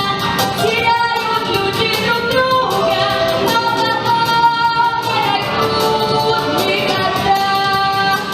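A 12-year-old girl singing a slow song in Russian over musical accompaniment, holding long notes.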